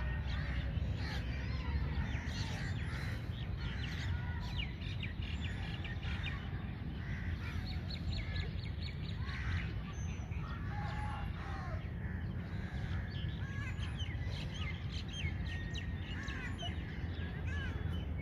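Many birds chirping and calling in quick short notes, over a steady low rumble.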